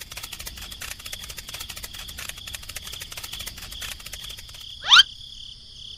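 Insects trilling steadily, with a fast pulsing rhythm. About five seconds in, a loud, short, rising whistle-like sweep cuts across it.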